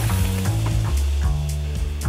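Background music of held low bass notes under a steady crackling hiss.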